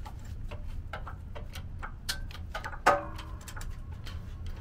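Hand-pumped hydraulic bottle-jack shop press loading up against a wheel hub seized in its front wheel bearing: a string of irregular sharp metallic clicks and ticks from the pump handle and the loaded parts, with a louder knock about three seconds in.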